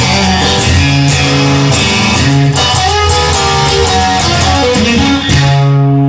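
Rock-style song led by electric guitar, with bass and a steady drum beat.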